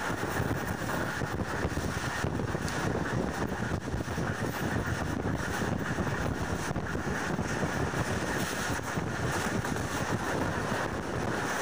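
Pakistan Railways goods train's wagons rolling past close by: a steady rumble and rush of wheels on rail, with wind on the microphone.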